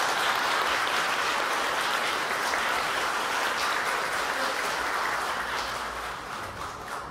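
Audience applauding: dense, steady clapping that dies away over the last couple of seconds.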